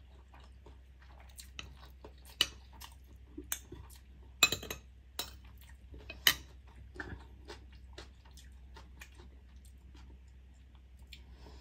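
Metal fork and spoon clinking and scraping against a plate while cutting a boiled egg and spooning marinade over rice, in scattered light taps with the loudest clinks about four and a half and six seconds in. A faint steady low hum lies underneath.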